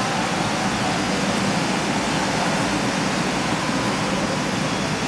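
Steady, even mechanical noise of a stationary passenger train, its engine and air-conditioning running.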